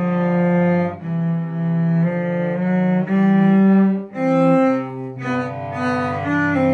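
Two cellos playing a duet: bowed, held notes in a lower line and a higher line, moving from note to note every second or so, with brief breaks about one and four seconds in.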